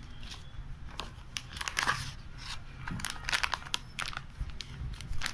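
Paper and plastic packaging being handled and crinkled, with irregular rustles and crackles.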